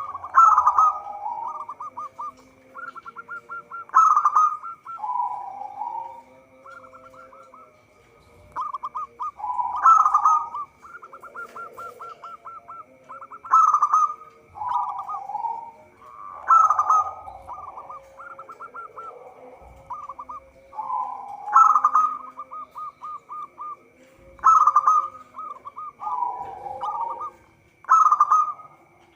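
Zebra dove (local perkutut) singing: about eight phrases every three to four seconds, each a loud opening coo followed by a quick run of short staccato coos.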